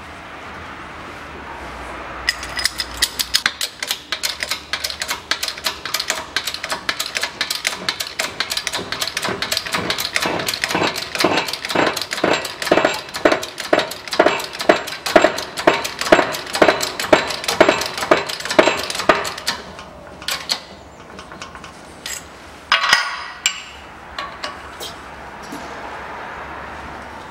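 Hand-pumped hydraulic shop press clicking with each pump stroke, a steady run of sharp clicks about three a second, as it presses the wheel hub into a new front wheel bearing in the steering knuckle. The clicks stop, and a short squeal follows a few seconds later.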